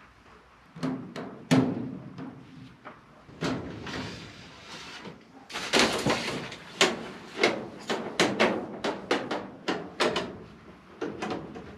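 Irregular knocks, clicks and clatter of hands handling metal ductwork and tools, with a denser rattling stretch about six seconds in.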